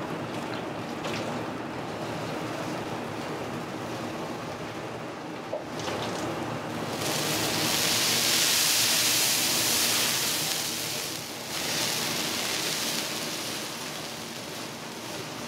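Sizzling on a hot oiled iron griddle: a low steady sizzle, then a much louder hiss about seven seconds in as a handful of yakisoba noodles is dropped onto the hot plate, easing off a few seconds later.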